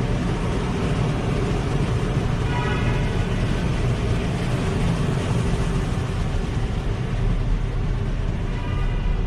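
2018 Hyundai Elantra driving at low speed, with steady engine and road rumble and no valve-train rattle after its oil pickup tube was repaired. Twice, about three seconds in and near the end, a brief high squeal rises above the rumble.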